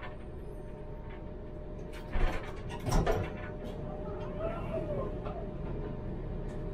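Tram's passenger doors shutting at a stop: two sharp knocks about two and three seconds in, over the steady low hum of the standing tram.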